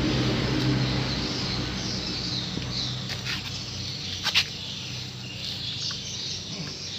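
Birds and insects chirping over a low steady hum, with sharp clicks about three and four seconds in.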